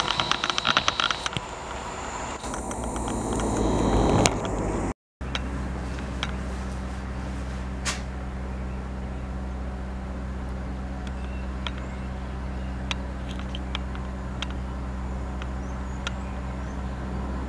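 Electric multiple unit passing, its wheels clicking rapidly over rail joints and the running noise rising as it nears. After a sudden cut, a steady low hum with occasional faint clicks while another electric train approaches slowly.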